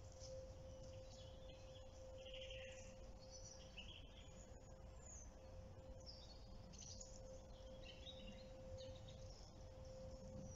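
Near silence with faint birdsong: scattered short chirps and calls, one a brief falling note, over a low outdoor rumble and a steady faint tone.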